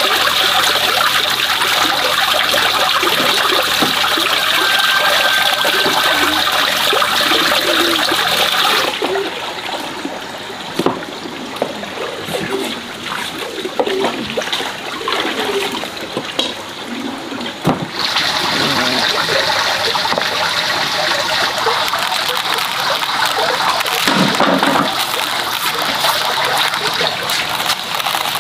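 Water splashing and trickling as pork is washed by hand in a basin, over a steady rushing hiss that drops away for a stretch in the middle.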